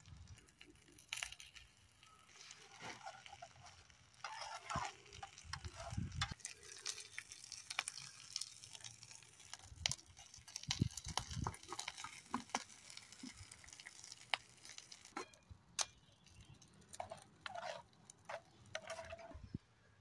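Saucepan on a small fuel-can camp stove: faint crackling and scattered light clicks, with a couple of soft knocks of the metal lid being set on the pot about halfway through.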